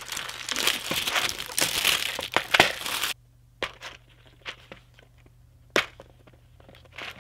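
Plastic wrapping crinkling and tearing as it is pulled off by hand, cutting off abruptly about three seconds in. After that, a few light clicks of a clear plastic case being handled.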